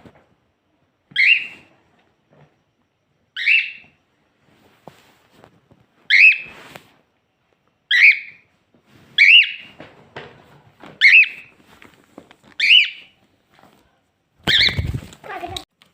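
Cockatiel giving short, loud, repeated contact calls, about eight in all, spaced a second and a half to two and a half seconds apart. Near the end one call comes with a low knock.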